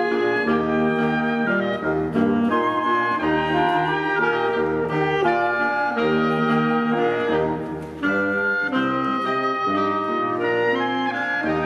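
A small live woodwind ensemble of flute, clarinet and saxophones playing together in held, overlapping notes over a low bass line, dipping briefly about eight seconds in.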